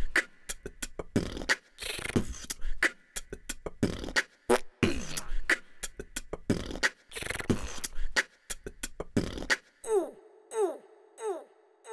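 Beatboxed outro jingle: rhythmic mouth-made drum hits and falling vocal sweeps at a steady beat. Near the end it gives way to a falling chirp that repeats and echoes away.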